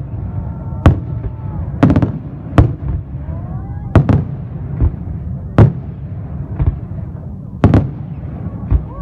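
Aerial fireworks bursting: about nine sharp bangs at irregular intervals of roughly a second, over a continuous low rumble of the display.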